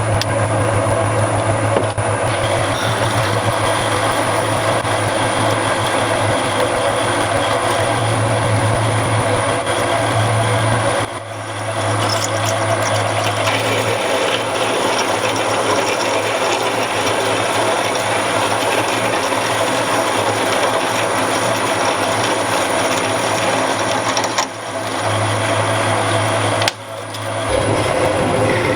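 Metal lathe running while turning small bosses: a steady motor hum under continuous machining noise, with a few short dips in level.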